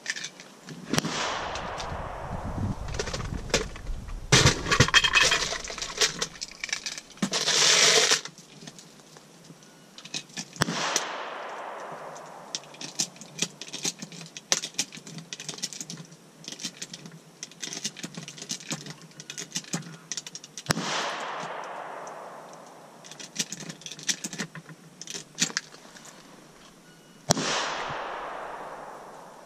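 Pistol shots at an outdoor range: many sharp cracks scattered throughout, with four louder shots whose echo trails off over a couple of seconds each.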